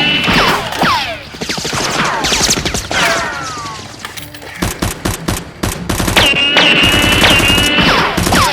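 Rapid bursts of automatic gunfire sound effects, with repeated falling whistles between the volleys and background music underneath. The shooting thins out around the middle and picks up heavily again after about six seconds.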